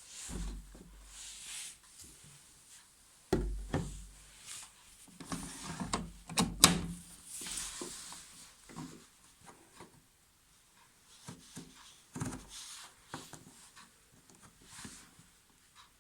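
Irregular knocks, rubbing and clicks of a washing machine being handled by hand, with a sharp click about six and a half seconds in and quieter taps after.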